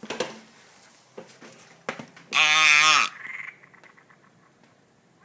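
One loud, wavering animal call lasting under a second, about two seconds in, from an unidentified night animal. It is followed by a fainter, shorter sound, with a few faint clicks earlier.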